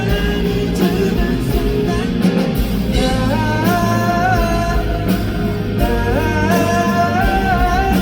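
Live rock band playing a song with guitar and drums, and a male singer's voice carrying the melody, strongest from about three seconds in.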